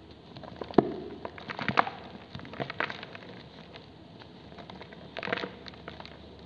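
Soft cast cement pieces snapped and crumbled by hand: sharp cracks with a gritty crunch. The loudest crack comes about a second in, with further clusters near two and three seconds and again past five seconds.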